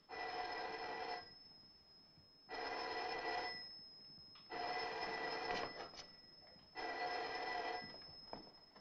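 An old wall-mounted telephone's bell ringing: four rings of about a second each, evenly spaced about two seconds apart.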